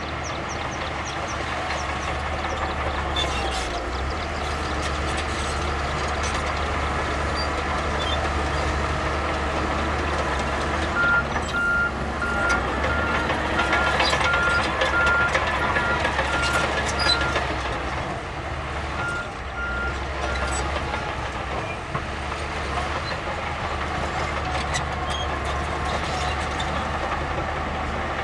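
Heavy earthmoving machinery, bulldozer and dump-truck diesels, running steadily. Partway through, a reversing alarm sounds a string of even single-tone beeps, pauses briefly, then beeps a few more times, while the engine noise swells a little.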